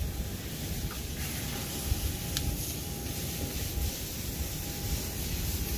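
Wind on the microphone, an uneven low hiss, with a faint steady tone underneath.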